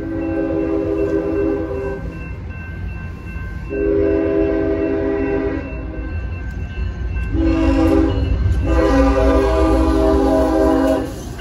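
Union Pacific ES44AC locomotive's multi-note air horn sounding the grade-crossing signal: two long blasts, a short one, then a final long blast, the standard warning for a public crossing. The diesel's low rumble and wheel noise grow louder as the locomotive reaches the crossing near the end.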